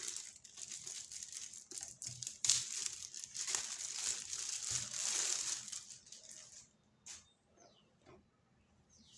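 Packaging rustling and crinkling as it is handled, in irregular bursts, stopping about six and a half seconds in; a single click follows shortly after.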